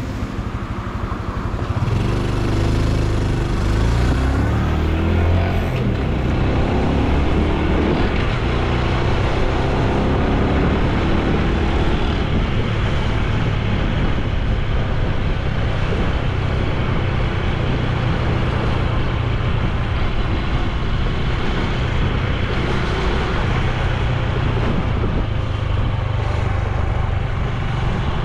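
Honda Super Cub C125's air-cooled single-cylinder four-stroke engine and exhaust heard while riding. It picks up speed in the first few seconds, then runs steadily.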